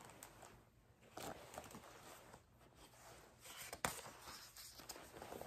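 Faint rustling of a hardback picture book's paper pages being handled and turned, with a single short tap a little under four seconds in.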